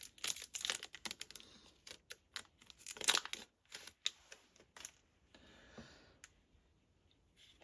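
Foil trading-card pack being torn open and crinkled, with cards clicking and sliding against each other: a quick run of sharp crackles and clicks that thins out and quietens after about five seconds.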